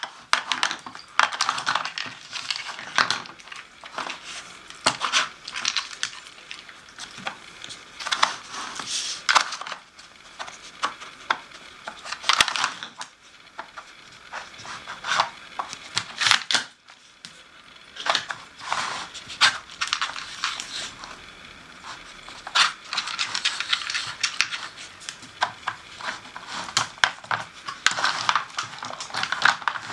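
Dog nosing and pawing at a plastic Nina Ottosson treat puzzle on a wooden floor, shoving its sliding tiles and knocking the plastic board and pieces: a continual irregular clatter of light plastic clicks and knocks, with short pauses.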